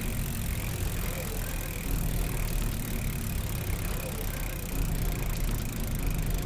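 Steady outdoor street ambience with a low rumble, as from passing traffic.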